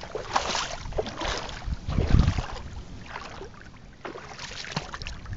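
Handheld camera being handled, a fingertip rubbing over it: irregular scraping and knocking on the microphone, with a heavier low thump about two seconds in.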